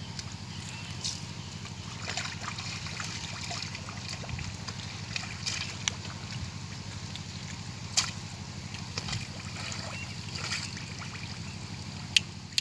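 Hands sloshing and splashing in shallow muddy water while groping in the pond mud for catfish, with scattered small splashes and two sharper ones, about two-thirds of the way in and just before the end.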